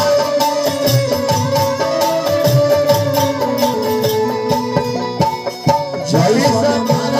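Live folk stage music played through loudspeakers: hand drums beating a steady rhythm under long held instrumental notes.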